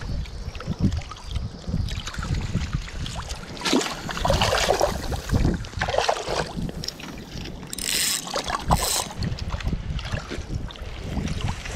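Wind buffeting the microphone and water splashing as a hooked sea trout thrashes at the surface and is brought into a landing net. Several sharper splashes come between about four and nine seconds in.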